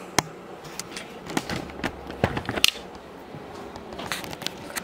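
Handling noise as a camera is lifted off its tripod and carried by hand: a string of irregular clicks and knocks, the sharpest about two and a half seconds in.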